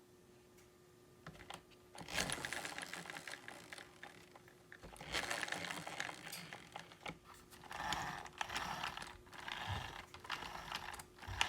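Drivetrain of a vintage Tamiya BigWig RC car being turned, its gears whirring with a fine rapid clicking in three spells of two to three seconds each.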